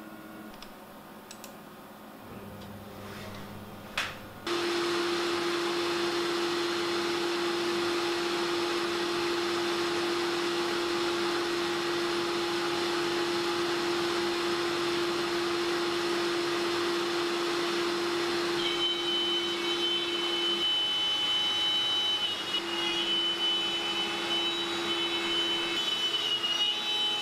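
A CNC router and its dust extraction switch on with a click about four seconds in and then run steadily. Later a high whine joins them, dipping briefly in pitch now and then, as the spindle's router bit cuts into a plywood sign blank.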